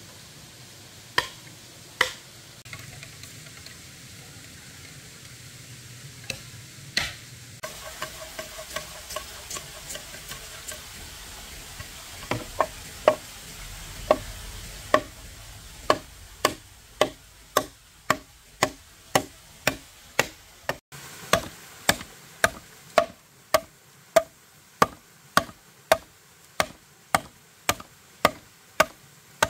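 Chopping with a knife on a board: a few scattered strokes at first over a faint sizzle, then a steady run of sharp chops about two a second through the second half.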